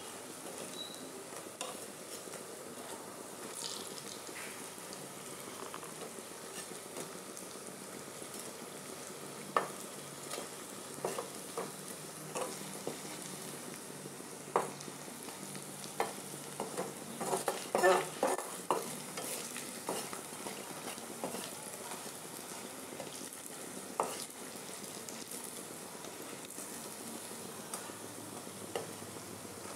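Red lentil fritters (masoor dal bora) deep-frying in oil in a kadai: a steady sizzle. A perforated metal skimmer scrapes and knocks against the pan now and then as the fritters are turned, most busily a little past halfway.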